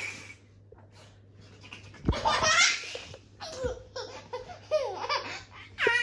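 A small child laughing in several high-pitched bursts, the first about two seconds in and another near the end.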